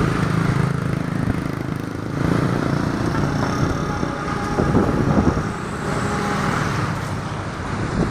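Strong wind blowing against the microphone: a dense, uneven noise, heaviest and rumbling in the low range, with a faint thin high whistle from about three seconds in.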